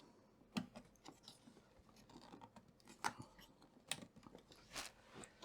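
Faint, scattered clicks and scrapes of cables and connectors being handled and plugged in, a few separate clicks a second or so apart.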